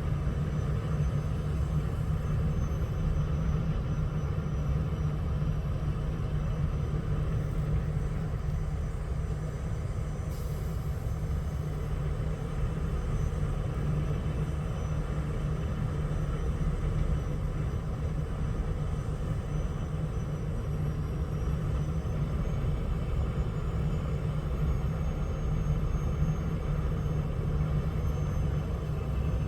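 Heavy diesel logging machinery running steadily: a continuous low engine rumble with no breaks or sharp impacts.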